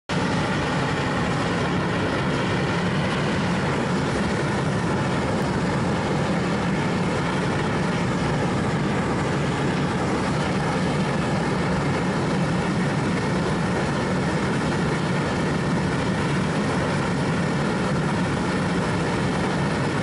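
A steady, unbroken mechanical drone, deep and even, that cuts off just after the end.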